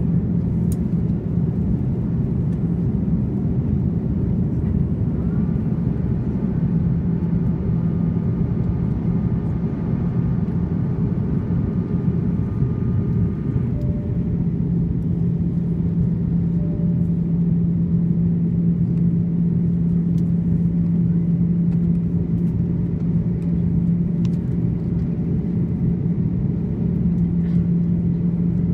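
Airbus A330-300's General Electric CF6-80E1 turbofan engines at climb power after take-off, heard inside the cabin as a steady low-pitched noise. A steady low hum in it grows stronger about halfway through.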